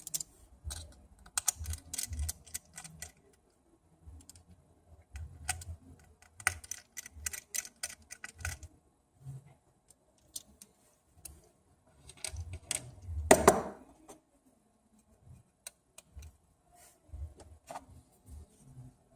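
Small tools and parts clicking and tapping during iPhone 6 Plus disassembly, in irregular clusters of light clicks, with one louder clatter about 13 seconds in.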